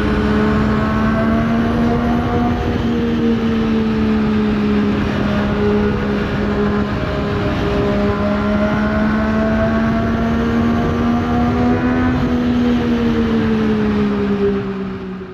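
Yamaha XSR900's inline-three engine running under way, its pitch slowly rising and falling with the throttle. The sound fades out near the end.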